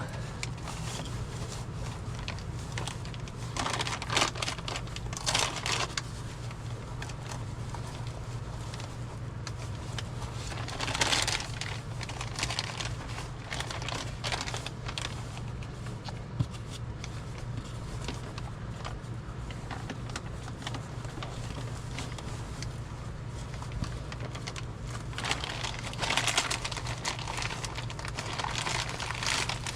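Plastic sheeting and a latex neck seal crinkling and rustling as they are stretched and pressed into place by hand, in a few bursts about four, eleven and twenty-six seconds in, over a steady low hum.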